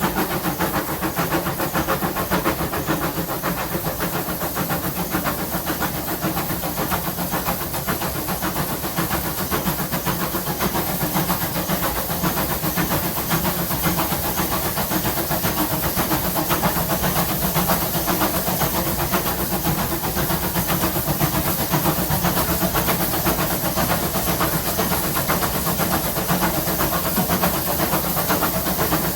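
GWR 5700-class pannier tank steam locomotive 7754 running steadily under way, a continuous mix of fast exhaust beats, steam hiss and running noise.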